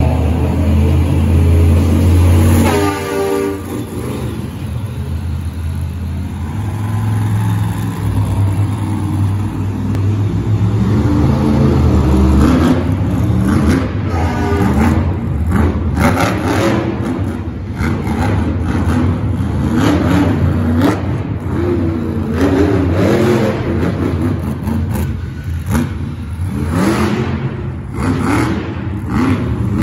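Monster truck engine revving hard over and over, its pitch climbing and falling with each stab of the throttle as the truck drives the dirt course. It runs as a steady low drone at first, and the revving grows more frequent in the second half.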